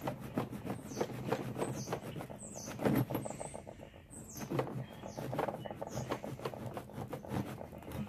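A sharp knapped stone flake sawing a groove into the end of a wooden stick, rasping back and forth in quick, uneven strokes, a little louder about three seconds in.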